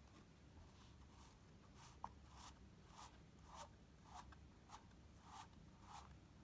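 Cardboard slider tab of a moving-parts board book being pushed back and forth, a faint cardboard-on-cardboard scrape with each stroke, about a stroke and a half a second, and one sharp click about two seconds in.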